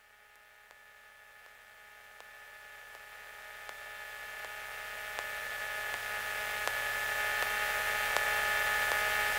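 Steady electrical hum and whine on the Cessna 182 Skylane's cockpit radio/intercom audio while the frequency is quiet, with faint regular ticks about every three quarters of a second. It grows steadily louder throughout.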